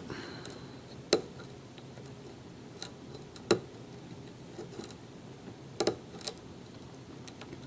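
Lock pick and tension wrench working the pins of a Kwikset-profile pin-tumbler challenge lock: about seven small, sharp metallic clicks at uneven intervals, with faint scraping between them.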